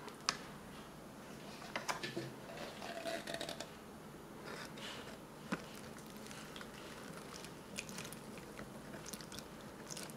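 Plastic flameless ration heater bag being handled, giving faint scattered crinkles, rustles and soft clicks, with a sharper tick about halfway through.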